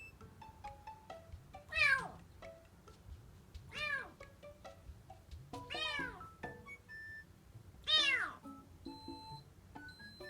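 Kitten meowing four times, about two seconds apart, each call a high meow that rises and falls in pitch.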